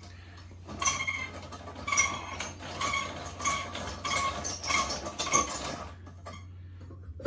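Toilet auger being cranked and pushed down a clogged toilet, its crank and cable giving short, repeated squeaks about twice a second that stop near the end.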